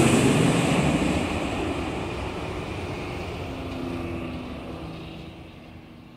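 Analogue TV static: a rough, even hiss that fades out steadily.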